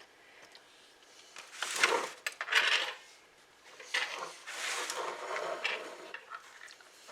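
A fork scraping and clinking on a plate, cutting into a frozen pie, in two bouts with a few sharp clicks.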